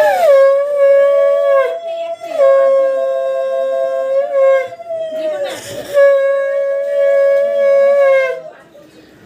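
Conch shell (shankha) blown in three long, steady blasts with short breaks between, each sagging slightly in pitch as it ends.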